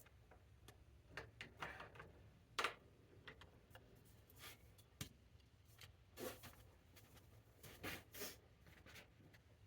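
Faint, irregular clicks and scrapes of bicycle parts and tools being handled during assembly, the loudest a sharp click about two and a half seconds in, over a low steady hum.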